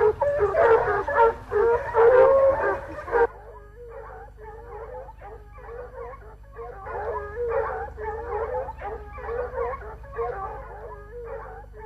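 A pack of running hounds baying in chorus while following a wild boar's scent. The calls are loud for about the first three seconds, then change abruptly to fainter baying that goes on.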